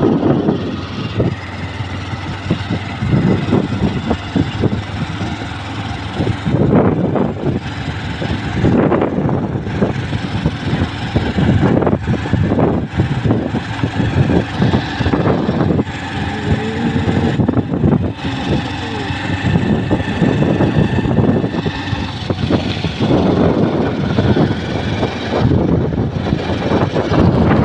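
A Honda motorcycle riding along a road, its engine running steadily under a loud, gusty rush of wind buffeting the microphone.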